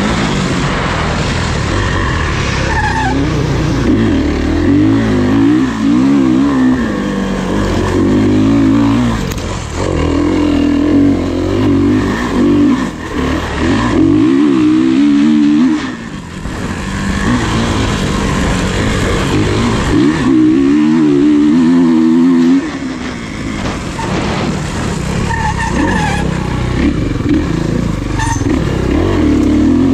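Off-road racing motorcycle engines revving hard, the pitch climbing and dropping again and again as they rev up and shift, with a couple of brief lulls.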